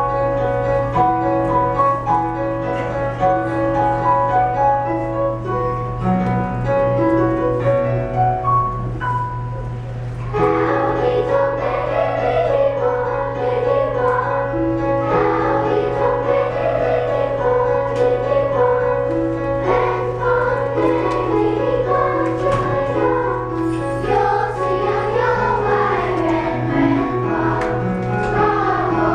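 Elementary school choir and instrumental ensemble performing: an instrumental introduction of held notes for about ten seconds, then the children's choir comes in singing over the accompaniment. A steady low hum runs underneath.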